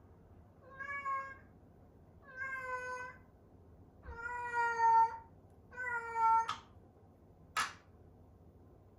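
A domestic cat meowing four times, each meow about half a second to a second long, followed by one brief sharp noise near the end.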